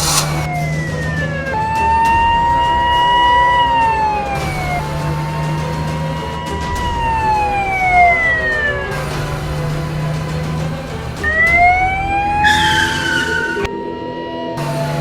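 Emergency-vehicle siren wailing in slow cycles, its pitch rising, holding and then falling about every four to five seconds, over background music.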